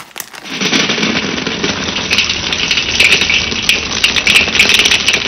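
Milk chocolate chips poured into an empty stainless steel bowl: a loud, dense rattle of many small pieces striking the metal, starting about half a second in.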